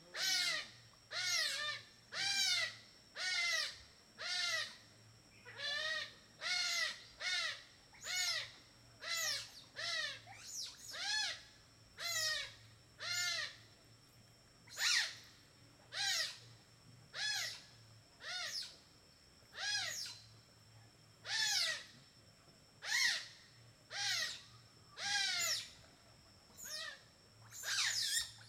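An animal calling over and over, about one call a second: short high-pitched cries that rise and fall, with a steady high whine behind them.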